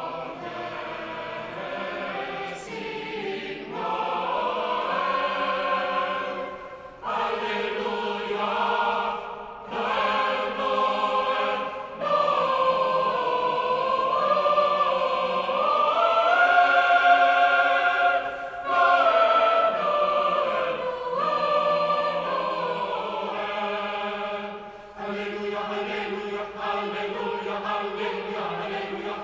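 Choral music: a choir singing slow, sustained phrases, with brief pauses between phrases.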